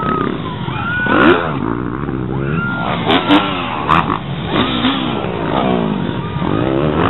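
Motocross dirt bike engines revving up and down again and again, their pitch swooping every second or two, with a few sharp clicks about three to four seconds in.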